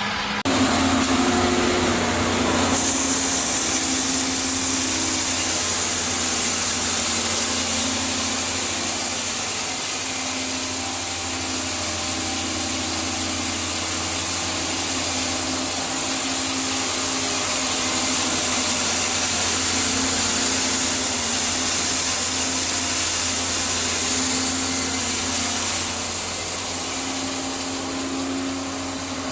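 Electric feed-processing machine running steadily, a constant hum under a loud hiss that grows brighter a few seconds in and eases back near the end.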